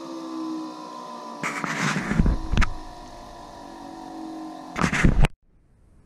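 Furnace draft inducer motor whining, its pitch slowly falling as it winds down, with loud clatter from the switch wiring being handled about a second and a half in and again near the end. The sound then cuts off suddenly.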